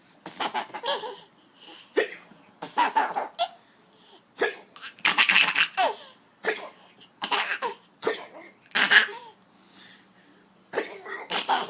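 Laughter in repeated short bursts, with hiccups among them.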